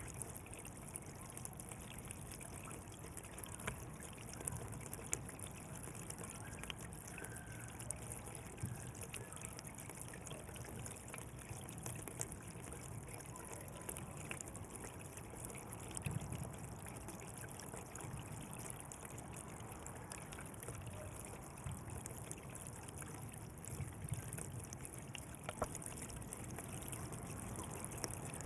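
Water flowing along a channel: a steady trickling run with small scattered splashes and drips.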